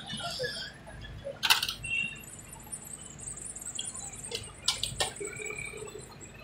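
Knife clinking and scraping against a steel tray while grilled chicken is cut: a loud sharp click about a second and a half in and several quick clicks near the middle, over faint background chatter of a busy stall.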